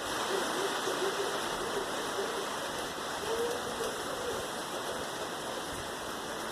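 Steady rain falling in a thunderstorm, an even hiss with no thunder. A few faint, short, low tonal notes sound over it.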